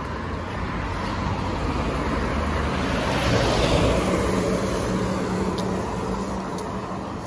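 A road vehicle driving past on the adjacent street: its engine and tyre noise swells to a peak a few seconds in, then fades away.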